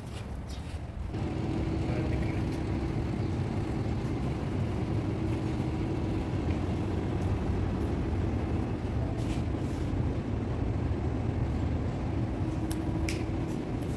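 A steady low mechanical hum with a faint held tone, setting in about a second in and running on evenly.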